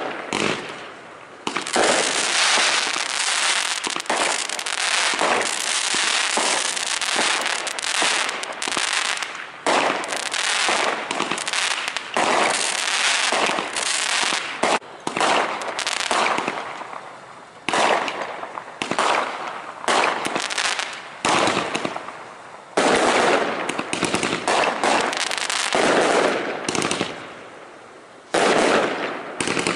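Fireworks display going off in quick succession: a dense, near-continuous run of bangs and crackles, easing off briefly a few times before picking up again.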